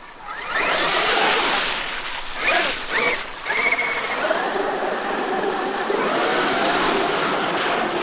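Traxxas X-Maxx RC monster truck's electric brushless motor whining as it is driven, the pitch rising and falling with the throttle, over a steady rushing noise.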